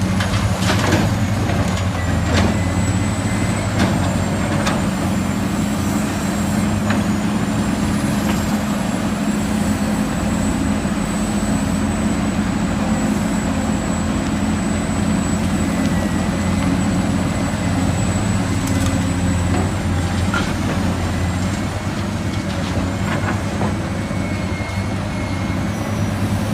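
Heavy diesel vehicle engine running steadily with a low hum, a thin high whine above it and a few light clicks.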